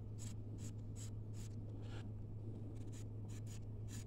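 Knife blade scraping the green pulp off a dried sisal leaf laid on a wooden board, in short rasping strokes about two or three a second, over a steady low hum.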